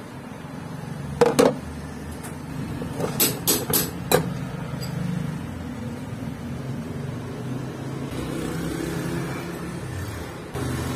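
Metal engine parts knocking together as they are handled: two sharp clicks about a second in, then four more between three and four seconds, over a steady low hum.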